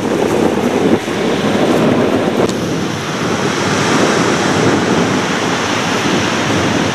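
Steady wind rushing over the microphone, mixed with the wash of surf on a sandy beach.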